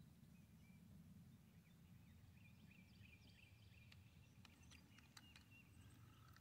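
Near silence: quiet outdoor ambience with faint, brief bird chirps and a few sharp clicks between four and five and a half seconds in.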